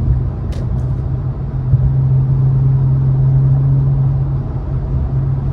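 Inside the cabin of a 2018 Infiniti Q50 Red Sport at highway speed: its 3.0-litre twin-turbo V6 running at a steady engine speed, a constant low drone over road and tyre rumble.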